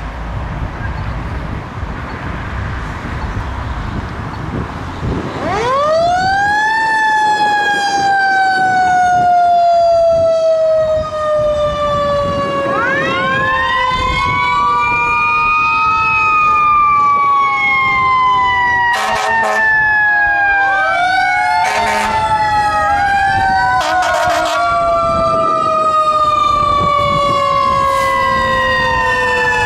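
Fire trucks responding with their sirens on. About five seconds in, a siren rises steeply to a high pitch and then falls slowly, and it is pushed up again several times. Three short horn blasts come near the middle, over heavy truck engine and road noise.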